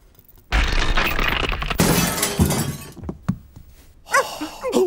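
Cartoon crash sound effect: a glass ceiling light fitting smashing along with tumbling furniture. It is one loud, noisy crash that starts about half a second in and lasts some two and a half seconds.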